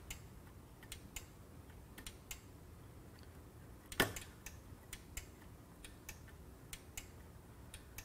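Relay in a 2001–2003 Ford F-150 door lock module clicking sharply about halfway through as the door is signalled to unlock, with fainter clicks scattered before and after. The click is the sign of a working relay: failed relays in this module do not click.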